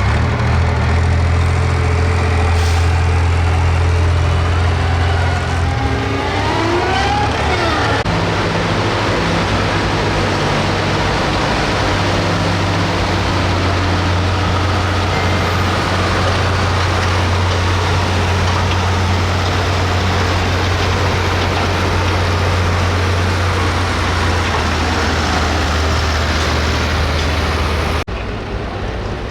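Hot farm class pulling tractor's diesel engine running hard and loud at high power through a pull, with a steady low drone and a brief rising whine partway through. The sound drops off abruptly near the end.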